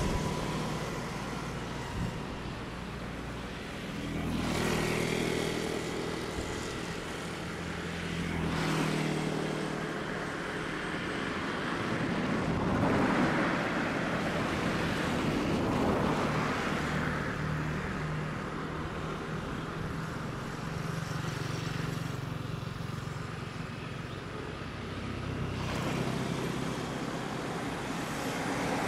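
Distant jet engines of a Boeing 777F freighter taxiing at low thrust, a steady hum, mixed with road traffic: vehicles pass now and then, each swelling and fading over a few seconds.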